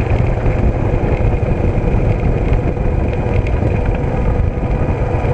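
A motor vehicle running steadily, a loud even rumble with a faint steady engine tone.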